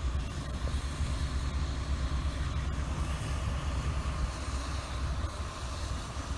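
Diesel engine of heavy earthmoving machinery running steadily: a continuous low rumble with no changes in pace.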